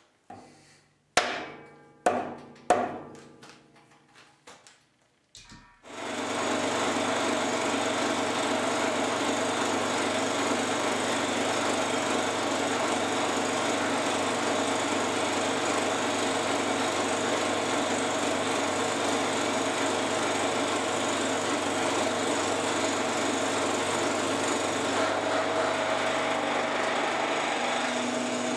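Several sharp taps from a soft-faced mallet, seating a metal workpiece down in a milling vise. About six seconds in, a benchtop mill-drill starts up and runs steadily.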